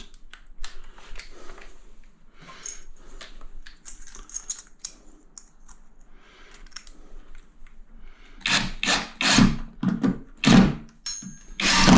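Light metallic clicks and rattles of screws and toilet roll holder fittings being handled, then about six louder rasping strokes in quick succession near the end.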